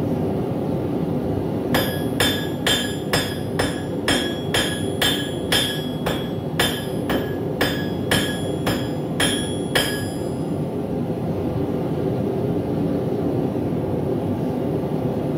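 Hand hammer striking hot steel on an anvil, about seventeen ringing blows at roughly two a second, stopping about ten seconds in, over a steady rushing noise.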